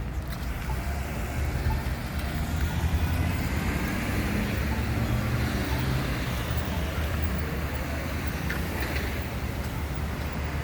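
Street traffic passing through an intersection: a steady rumble of engines and tyres, a little louder about three seconds in.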